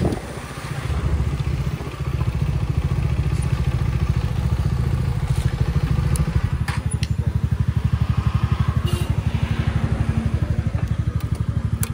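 Motorcycle engine running as the bike rolls slowly to a stop, then idling with an even, rhythmic throb. A few light clicks come over the top.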